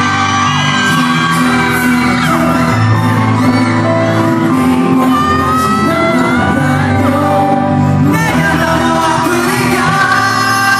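Live pop ballad: a male singer sings into a handheld microphone over the band's backing track, echoing in a large hall, with shouts from the audience over the music.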